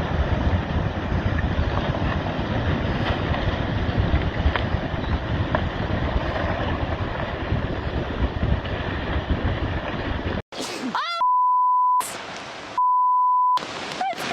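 Loud, steady rush of strong wind and water buffeting the microphone, cutting off abruptly near the end. It is followed by a few brief gliding sounds and two steady, high-pitched beeps, each under a second, about half a second apart, the kind used to bleep out words.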